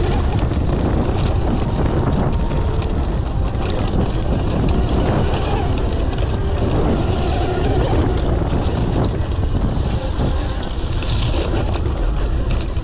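Loud, steady wind buffeting the microphone of an electric dirt bike riding over a grassy trail.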